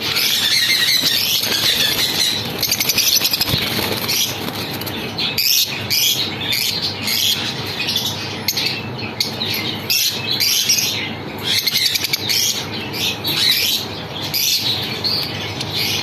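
Lovebirds in a cage chattering with dense, overlapping high-pitched squawks and chirps, with wings fluttering.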